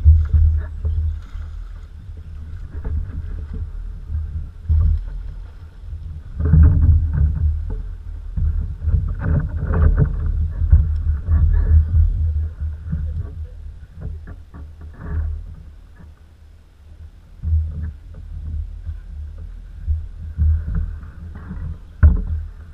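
Canoe on the water: a low, uneven buffeting rumble with irregular splashing and knocking around the hull, busiest a few seconds in.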